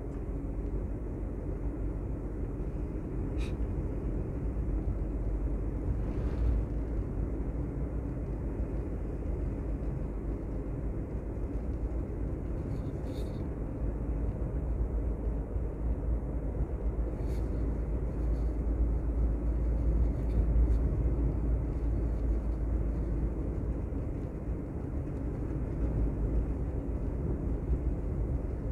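Steady road and wind rumble of a vehicle travelling along a road, with a faint steady engine hum underneath and a few brief faint high ticks.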